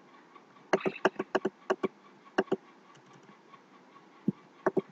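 Computer keyboard keys and mouse buttons clicking as a value is typed into a field: a quick run of clicks about a second in, a few more spaced ones, then two or three near the end.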